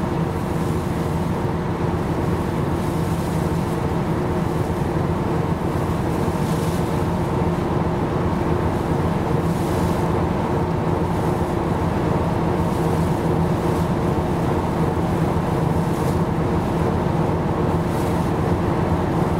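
Steady drone of a ship's engine: an even low hum made of several held tones, with a hiss of wind and water over it.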